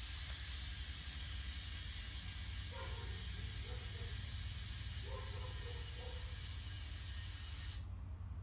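Air hissing steadily through a digital-gauge tire inflator chuck clipped to a car tire's valve. It fades slightly and cuts off for about half a second near the end, then starts again.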